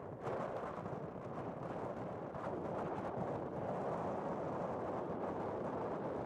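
Steady rushing wind noise on the microphone, slightly stronger from about a quarter second in, with no bird calls standing out.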